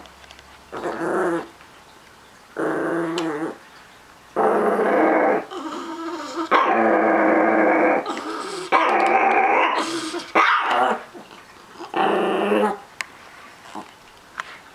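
A small Chihuahua–miniature pinscher mix dog growling in repeated bouts, mostly about a second each with one long growl of nearly three seconds, as he guards his treats.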